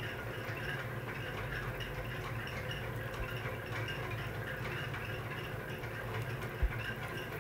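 Faint tapping and scratching of a stylus on a tablet's glass screen as handwriting is added, over a steady low hum. A single low thump comes about six and a half seconds in.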